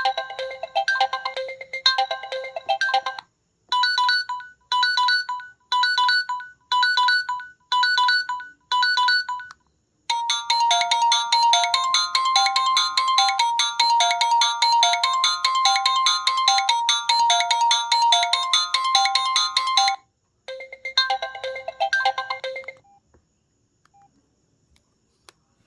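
Samsung SGH-X497 mobile phone playing its built-in alarm tones one after another through its small speaker: a short melodic tone, then a run of short beeps about one a second, then a longer, denser melody, then a brief melodic tone that stops about three seconds before the end.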